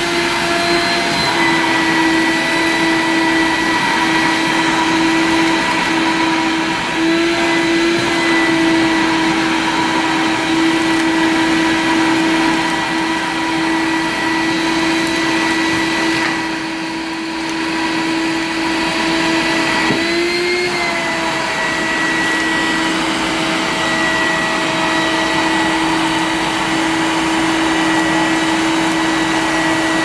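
Small wet/dry shop vacuum running steadily with a high motor whine and suction hiss. It dips in loudness briefly a little past the middle, and its pitch rises for a moment shortly after.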